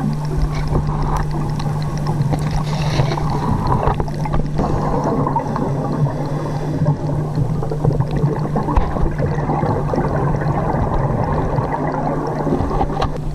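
Underwater sound picked up by a dive camera in its housing: a steady low hum under dense, continuous crackling and clicking.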